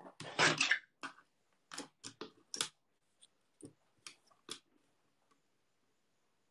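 Paper trimmer: a short sliding cut of the blade carriage about half a second in, followed by a run of light clicks and taps as a thin strip of cardstock is handled and lined up on the trimmer.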